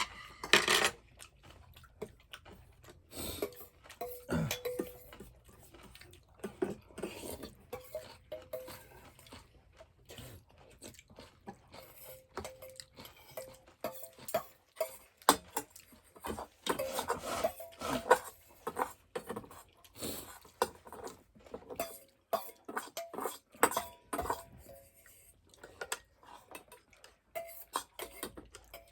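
Cutlery clinking and scraping against bowls and dishes as people eat, in irregular clicks and taps.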